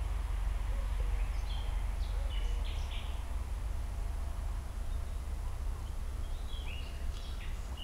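Songbirds calling in short chirping phrases, a cluster about a second and a half in and another near the end, over a steady low rumble.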